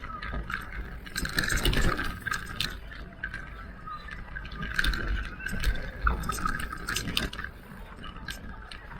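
Electric mountain bike ridden over rough trail: an irregular stream of clicks and knocks from the bike over a low rumble.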